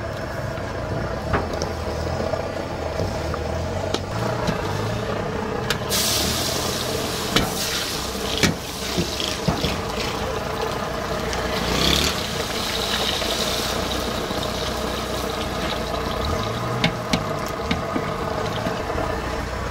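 French fries deep-frying in a large wok of hot oil: a sizzling hiss sets in suddenly about six seconds in and carries on, with a few sharp clinks of the metal strainer. A low engine hum runs underneath.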